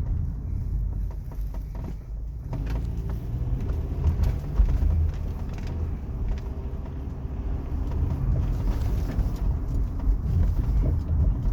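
Car driving with a steady low road rumble, and a run of sharp knocks from the coilover suspension over bumps a few seconds in. The owner finds the coilovers, smooth a few months ago, now sounding a little bad on bumps.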